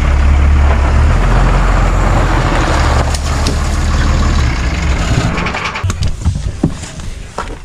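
John Deere combine's engine and machinery running loudly and steadily, then winding down. As it slows, the steady drone gives way to scattered knocks and rattles.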